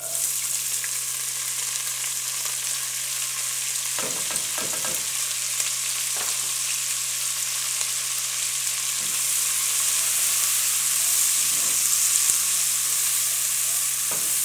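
Diced onion frying in hot bacon grease in a pot. It starts suddenly as the onion goes in, then keeps up as a steady sizzle, with a silicone spatula stirring near the end.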